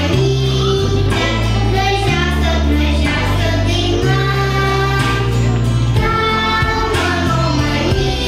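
A song with a sung vocal melody over a steady, stepping bass line.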